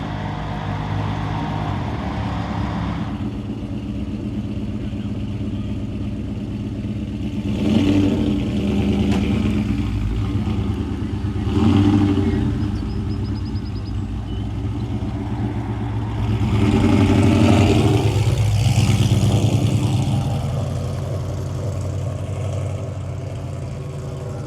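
Ford Mustang engine running steadily and revved three times, the last rev the longest.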